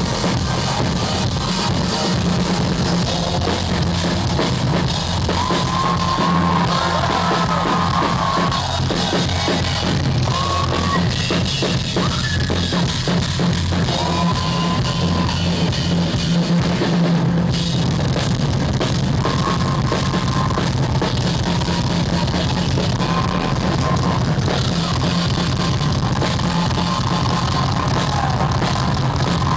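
Live jam between a drum kit and a synthesizer: a driving beat on the kit over sustained low synth notes, with short held keyboard lead phrases in between.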